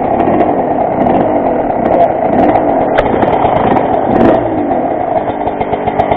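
Worn-out Honda motorcycle engine running and being revved up and down repeatedly, with a couple of sharp clicks in the middle.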